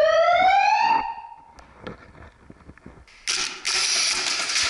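A siren rising steadily in pitch, the signal that starts the game round, cutting off about a second in. A few light clicks follow, then a loud steady hiss starts about three seconds in.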